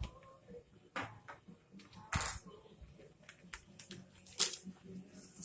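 Plastic Lego pieces being handled and pressed together: a few sharp clicks and light rattles, the loudest about four and a half seconds in.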